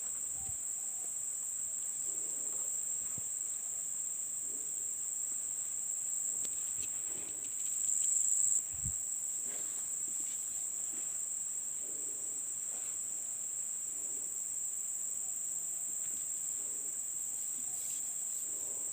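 Steady, high-pitched drone of insects, unbroken and even, swelling a little louder for about a second around eight seconds in.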